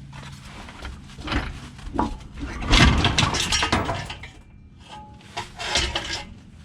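Irregular metallic clanks and scrapes as a truck's transmission is pried loose from the engine and worked out by hand, without a transmission jack. The loudest clatter comes about three seconds in.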